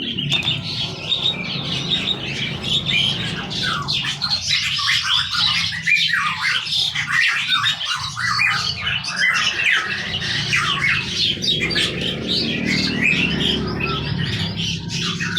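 Many caged songbirds chirping and squawking at once in a dense, continuous chorus of short calls, over a low steady hum.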